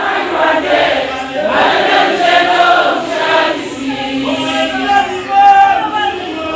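A group of voices singing together, choir-style.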